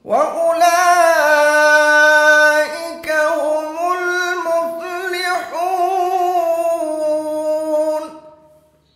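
A man's melodic Quran recitation (tajweed): one long drawn-out phrase in a high, clear voice, held on sustained notes with ornamented turns and a few brief breaks, trailing off near the end.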